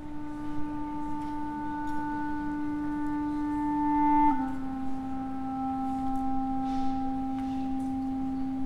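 A woodwind instrument playing long, steady held notes in a slow melody: one note for about four seconds, then a step down to a slightly lower note held to the end.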